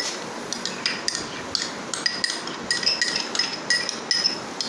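Repeated light clinks, about three a second, as an upturned container is tapped against the rim of a ceramic bowl to knock fresh cream out into it.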